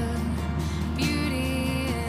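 Background music with held notes that change about a second in.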